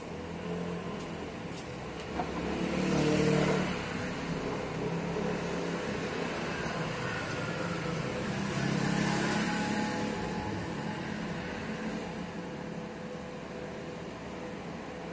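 Road vehicles passing: a steady traffic hum with two vehicles going by, one peaking about three seconds in and another around nine seconds in.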